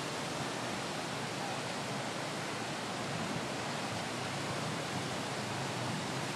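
Floodwater from the overflowing Rahway River rushing across a flooded street, a steady even rush of water.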